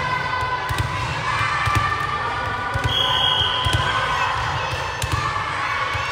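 Volleyballs smacking and bouncing on a hard gym floor, a string of sharp thuds, with a short high whistle blast about three seconds in over the din of children's voices in the hall.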